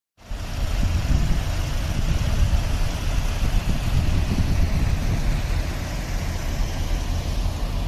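Diesel farm tractor engines rumbling steadily as a column of tractors drives past.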